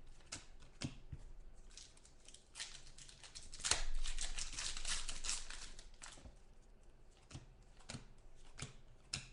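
A trading-card pack's wrapper being opened, giving a rough ripping, rustling noise for about three seconds in the middle, loudest about four seconds in. Light clicks and taps of the cards being handled come before and after it.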